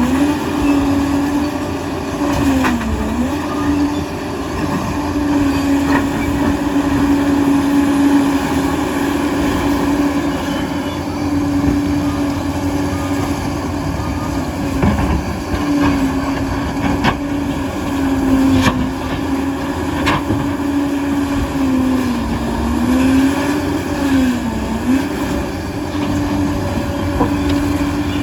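Liebherr PR 746 crawler dozer working: its diesel engine and drive run with a steady droning tone that sags in pitch and recovers several times as the machine takes load, with occasional sharp clanks from the steel tracks and blade.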